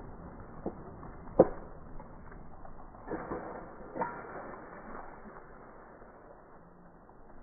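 A few scattered sharp knocks, the loudest about a second and a half in and smaller ones around three and four seconds in.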